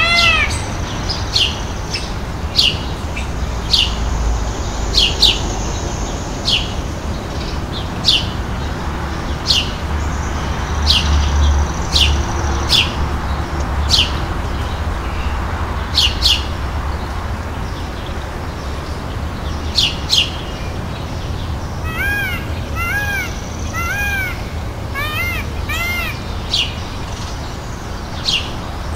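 Birds calling: short sharp chirps every second or two, and near the end several quick groups of two or three rise-and-fall peafowl calls, with a low rumble underneath.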